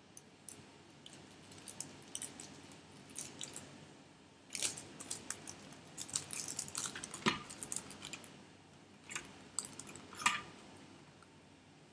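Small clicks, taps and light scraping of nail-art tools and gel containers being handled on a table, busiest in the middle, with a couple of sharper clicks near the end.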